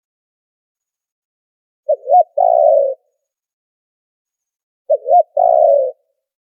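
Spotted dove cooing twice, about three seconds apart: each call is two short notes followed by one longer coo. Background noise has been filtered out, leaving nothing between the calls.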